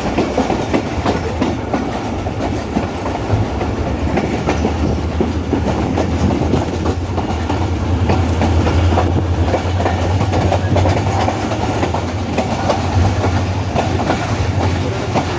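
Train running along the track, heard from on board: a steady low rumble of the moving carriages with the wheels clacking over the rails.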